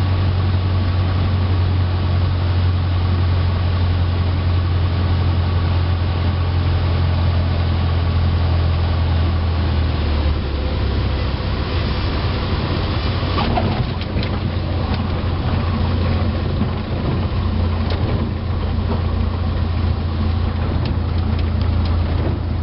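Cessna 152's four-cylinder engine and propeller droning steadily inside the cabin on final approach. About ten seconds in the drone eases as power comes off for the flare, and a brief sharp noise about thirteen seconds in marks the touchdown, followed by the rollout noise on the runway.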